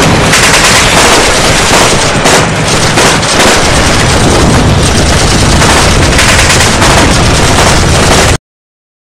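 Heavy, continuous gunfire: machine guns and rifles firing together in a dense, unbroken volley with deep booms underneath, cutting off suddenly near the end.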